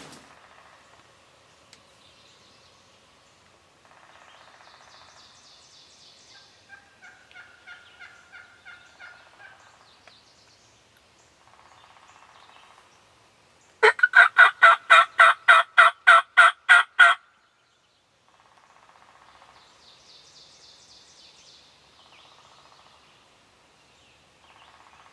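Turkey yelping. A faint run of yelps comes about seven seconds in, then a loud, evenly spaced run of about a dozen yelps, roughly four a second, about halfway through, which cuts off abruptly.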